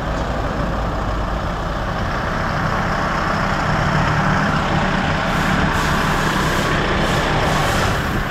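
Kia Bongo III 4x4 double cab's diesel engine idling steadily.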